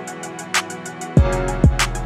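Hip hop beat in the background music: fast hi-hat ticks, a sharp snare hit about half a second in, and deep falling bass-drum hits that come back in just after a second.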